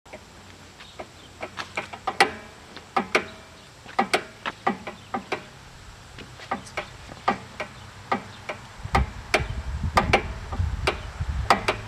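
A run of irregular sharp clicks and knocks, roughly one or two a second, with a low rumble joining about nine seconds in.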